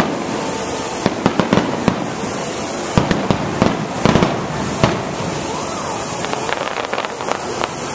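Aerial fireworks shells bursting in quick succession: a run of sharp bangs about a second in and more between three and five seconds, then smaller, quicker pops near the end, over a steady background hiss.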